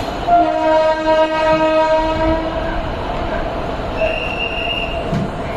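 Locomotive horn of an Indian Railways express sounding one long blast of about two and a half seconds, starting a moment in, over the steady running of the departing train. A brief high squeal follows about four seconds in.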